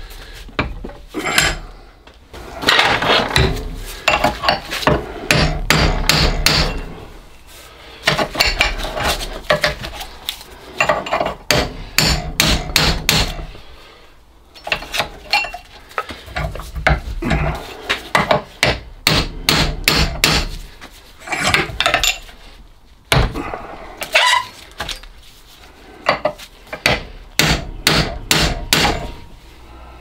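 Hammer striking a bronze steam-boiler clack valve clamped in a vise: runs of quick, ringing metal-on-metal blows with short pauses between them, as a seized part is knocked to free it.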